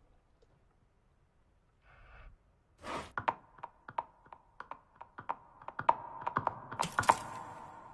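A quick, irregular series of sharp clicks and taps, two or three a second, starting about three seconds in over a faint steady tone.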